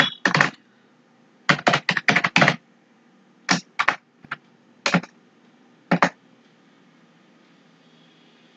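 Computer keyboard keys clicking as someone types: a quick run of keystrokes about one and a half seconds in, then single keystrokes spaced over the next few seconds, stopping about six seconds in.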